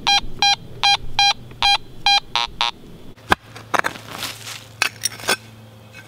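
Fisher F19 metal detector beeping repeatedly as it is swept over a buried target, about a dozen short beeps at one pitch. A bit past halfway come a sharp click and several scraping strokes of a hand digger cutting into the soil.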